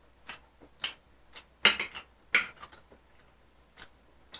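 Eating sounds at close range: a string of short smacks and clicks, about seven of them, the loudest pair a little under two seconds in and again about half a second later.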